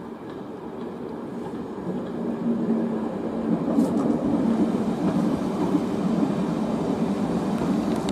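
First-generation diesel multiple unit passing at low speed, its underfloor diesel engines running and its wheels rolling on the rails. A steady engine note comes in and the sound grows louder about two seconds in.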